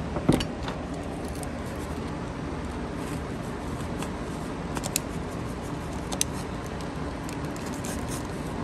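Utility knife cutting through a thick foam vacuum filter: faint scratchy crackles of the blade in the foam, with one sharp knock just after the start, over steady background noise.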